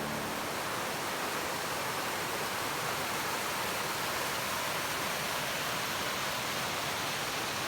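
Rushing water, a steady even rush with no change throughout.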